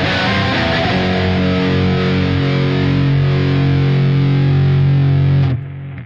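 Stratocaster-style electric guitar played with distortion: a few quick notes, then a chord held and ringing for about four seconds, muted suddenly near the end.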